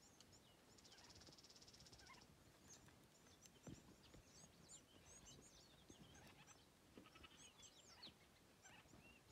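Faint chirping of small birds: many short, high calls with two rapid buzzy trills, one about a second in and one near the end. A single low thump a little past the middle is the loudest sound.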